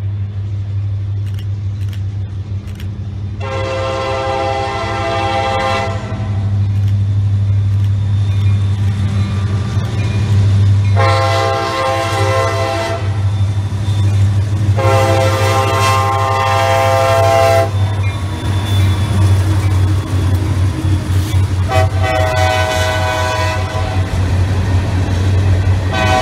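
Diesel freight locomotive air horn sounding four long blasts, several notes at once, as the train approaches a road grade crossing, over a steady low rumble. The horn is the crossing warning. A fifth blast begins just at the end, as the freight cars roll past.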